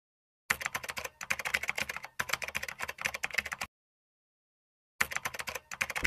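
Rapid keyboard-typing clicks, starting about half a second in and running with two brief breaks, stopping for over a second, then one more short run near the end.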